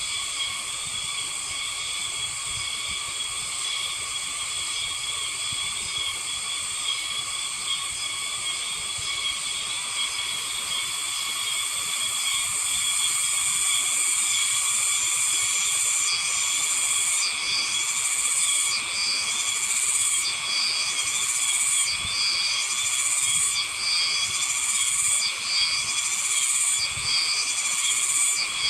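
Cicadas singing: a steady, high, shrill buzz that grows louder about twelve seconds in. From about sixteen seconds a rhythmic pulsed call joins it, repeating a little more than once a second, each pulse dropping in pitch.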